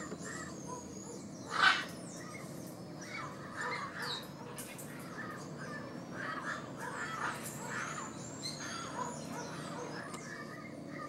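Parrot calls: one loud, harsh squawk about a second and a half in, then softer scattered squawks and chatter, with thin high bird chirps in the background.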